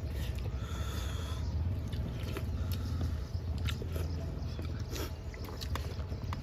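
People chewing and biting food, eating by hand, with scattered wet clicks and smacks of mouths. Under it runs a steady low rumble.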